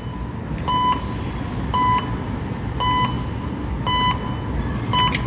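Perto cash machine beeping loudly, a short beep about once a second, five times, prompting the user to take back the card after the transaction.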